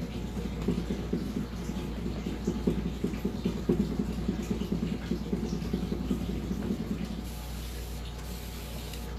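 Cloth rag dabbing and rubbing on a painted tabletop, blotting wet chalk-paint veins: a run of soft, uneven rustling pats that dies away about seven seconds in, over a steady low hum.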